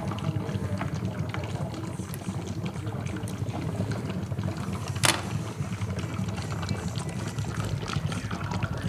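HHO (hydrogen-oxygen) gas from a 118-plate electrolysis cell running flat out, about 12 litres a minute, bubbling vigorously through water in a steady, rapid gurgle. A single sharp click about five seconds in.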